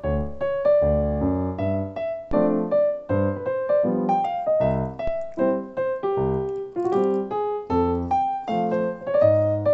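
Piano music playing a melody of struck notes over low bass notes, a few notes a second.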